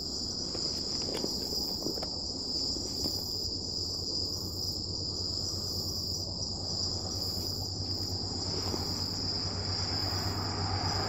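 Night-time insect chorus: crickets trilling steadily at a high pitch, with a higher pulsing insect call repeating about once a second. A low steady hum runs underneath.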